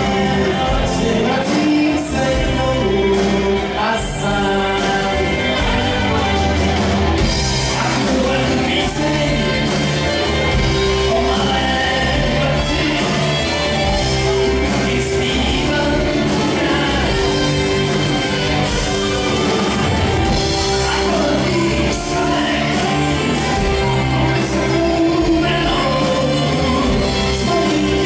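Live rock band playing on electric guitars and a drum kit, with a voice singing over the band.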